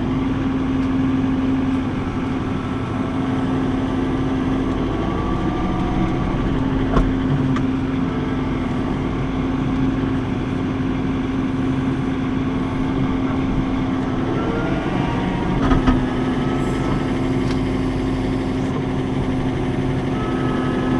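John Deere 4066 compact tractor's diesel engine running steadily at raised rpm held by its e-throttle while the front loader works gravel. The pitch dips briefly about two-thirds through, and there are a couple of short knocks.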